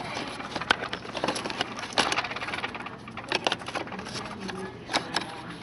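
Coins clinking and rattling in irregular sharp clinks as they are handled and emptied out of a vending machine's coin box.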